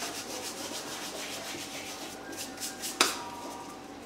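Gloved palms rubbing together to crumble dried thyme, a quick run of repeated rubbing strokes, with one sharp click about three seconds in.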